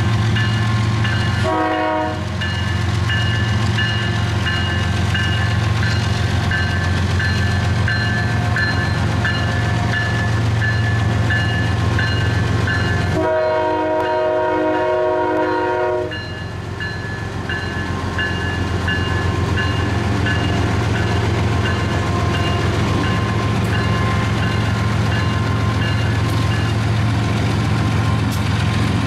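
Diesel locomotives led by a Norfolk Southern unit rumble past steadily, with a bell ringing over them. The lead locomotive's horn sounds a short blast about two seconds in and a longer blast of about three seconds around the middle.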